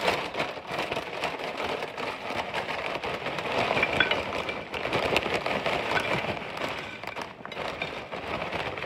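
A crinkly plastic tortilla-chip bag rustling as tortilla chips are shaken out of it and tumble onto a plate. A continuous dense crackle of many small clicks.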